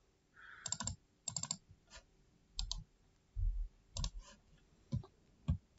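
Computer mouse clicking, several faint, sharp clicks spread out, some in quick pairs, with a few dull low thumps between them.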